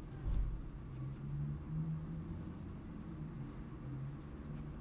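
Coloured pencil scratching on kraft-paper card in short strokes, pressed fairly hard, with a low thump about a third of a second in.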